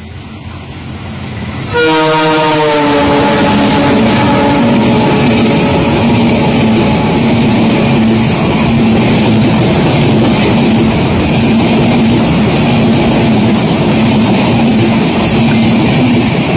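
Diesel locomotive horn blowing for about three seconds as the oncoming train meets the camera train, its pitch sagging slightly as it passes. Then the train's LHB coaches rush past close by on the adjacent track, a loud steady clatter and rush of wheels and air.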